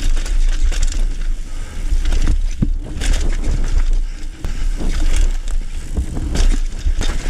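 Knolly mountain bike ridden fast downhill on a dirt forest trail: a heavy wind rumble on the microphone, with the tyres on loose dirt and short knocks and rattles as the bike hits bumps.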